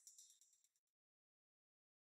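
Near silence: the faint end of the closing music dies out within the first second, then complete silence.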